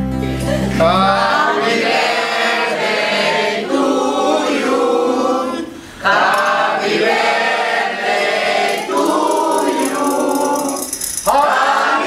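A mixed group of men and women singing a birthday song together, in phrases with short breaths between them about six seconds in and again near the end. A guitar chord from the intro fades out in the first second.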